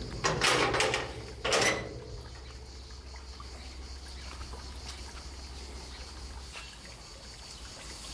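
Green sheet-metal garden gate clanking and rattling as it is unlatched and opened, in a few loud bursts in the first two seconds, then quiet outdoor background.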